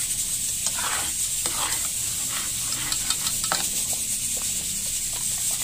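A metal fork stirring thick peanut sauce in an aluminium pot: irregular scraping and slopping strokes over a steady high hiss. The sauce has thickened.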